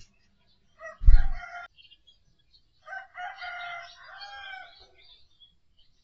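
A rooster crowing: a short call over a loud low thump about a second in, then a longer crow from about three to nearly five seconds in, while small birds chirp faintly throughout.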